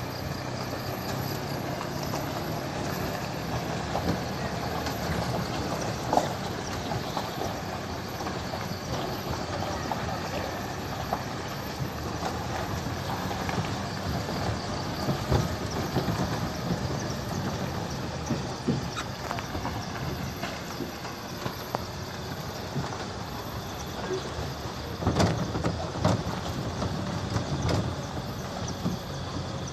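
Vehicle driving slowly over a rough, potholed road, heard from inside: steady engine and road noise with scattered knocks and rattles as it jolts over the holes, the sharpest a little over halfway and near the end.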